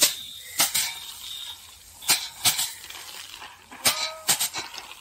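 Bundles of harvested rice stalks being beaten by hand against an iron bench frame to thresh out the paddy grain: a run of sharp, irregular strikes, several in quick pairs from more than one person working at once.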